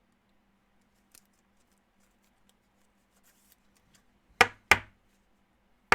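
Two sharp knocks about a third of a second apart near the end, over a faint steady hum.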